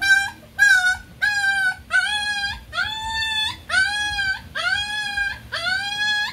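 Puppy whining: a steady series of short, high cries, about three every two seconds, each rising quickly and then holding.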